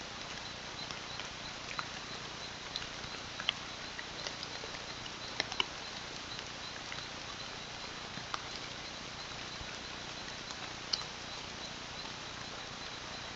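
Rainforest ambience: a steady hiss with a high insect chirp repeating evenly, about two to three times a second, and scattered short ticks and clicks.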